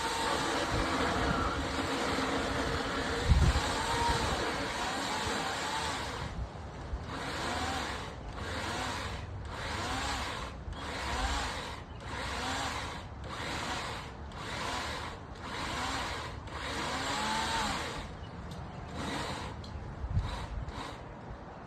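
Small electric chainsaw cutting dead wood. It runs steadily for about six seconds, then in short bursts about once a second, its pitch rising and falling with each burst, and a few brief ones near the end.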